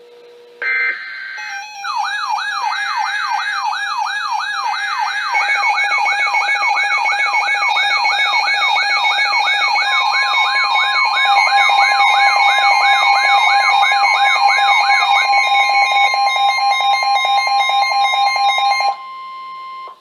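Several NOAA weather alert radios sound their alarms together for an incoming warning: a warbling, siren-like alarm sweeps up and down about twice a second, layered with electronic beeping. About halfway through, a steady tone joins in, the weather radio warning alarm tone. Most of the alarms cut off suddenly about a second before the end, leaving the steady tone alone.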